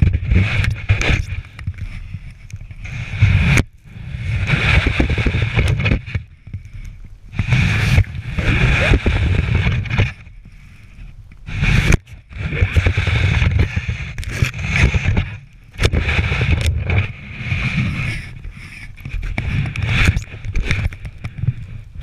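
Snow shovel scooping and throwing deep snow, heard through a camera mounted on the shovel: repeated noisy strokes every two to three seconds, each with a low rumble of handling noise through the shovel.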